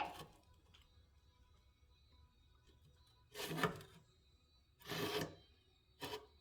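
Three short scraping, rustling handling noises against a quiet background: parts being moved around by hand on the mower, the first two about half a second each, the last briefer, near the end.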